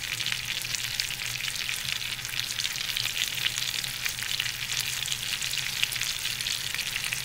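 Chicken breasts frying in a skillet of butter and olive oil over medium-high heat: a steady, dense crackling sizzle.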